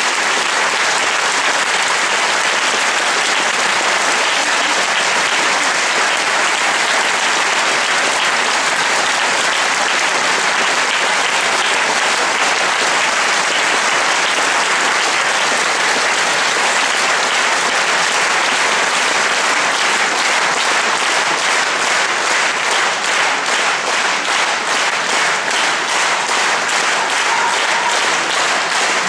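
Large concert-hall audience applauding. In the last third the clapping falls into regular rhythmic clapping in unison.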